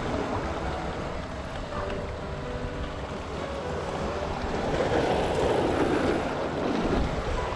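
Sea surf washing against rocks with wind buffeting the microphone; a wave surges up about five seconds in.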